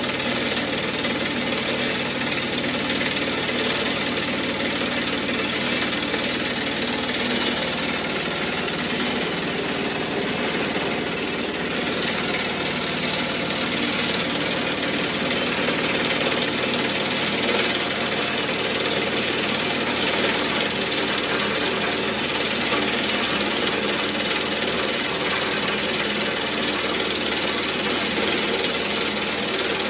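Homemade vibrating sieve for crushed-glass blasting media running: a steady mechanical hum and rattle from the shaking steel frame and screen, with crushed glass sifting through and pouring out.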